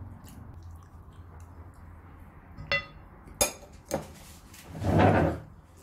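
Dishes and cutlery clinking at a meal table: a few sharp clinks in the middle, one with a short ringing tone, then a louder noisy sound lasting about half a second near the end, over a low steady hum.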